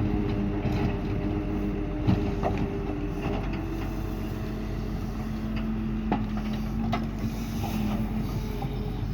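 Doosan DX140 excavator working: its engine and hydraulics make a steady hum whose pitch shifts about three and a half seconds in, with a few sharp knocks scattered through.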